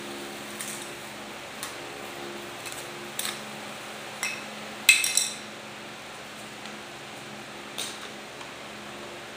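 Several light taps and clinks from hard objects being handled on a wooden tabletop, the loudest a short ringing clatter about five seconds in, over a steady low hum.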